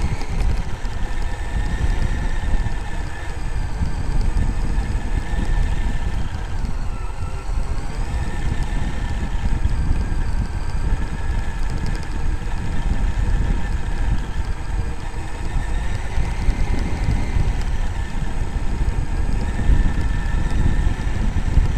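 Traxxas X-Maxx RC monster truck's brushless electric motor and drivetrain whining as it drives, heard from on board, over a heavy rumble of the tyres and chassis bouncing along a grassy dirt track. The whine drops in pitch briefly about seven seconds in, then climbs again.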